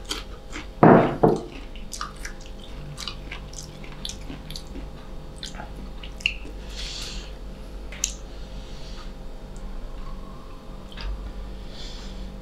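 Close-miked chewing of crisp green mango slices: a loud crunching bite about a second in, then wet mouth clicks and smacks as the mango is chewed.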